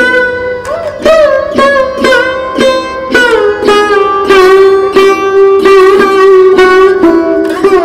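Background instrumental music: a plucked string instrument playing a melody in notes struck about twice a second, several of them sliding in pitch.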